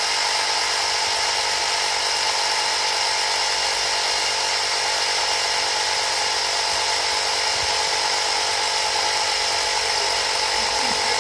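Small portable electric air compressor running steadily as it pumps air into a rugby ball, a constant motor drone with a high whine.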